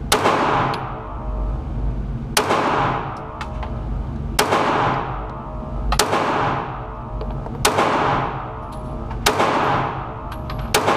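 9mm compact pistol fired slowly at a target, about seven single shots spaced a second and a half to two seconds apart, each with a sharp crack and a long fading echo.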